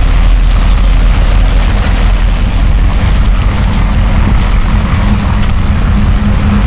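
Passenger boat's engine running steadily with a deep, low drone, over water churning and splashing at the stern.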